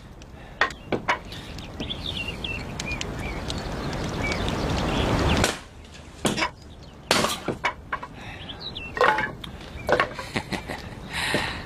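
Firewood being chopped with a hatchet: sharp chops and cracks of wood at irregular intervals. A rushing noise swells for a few seconds and cuts off sharply about halfway through.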